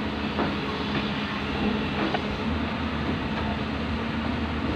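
Backhoe's diesel engine running steadily with a low, even drone, with a few faint knocks over the first two seconds.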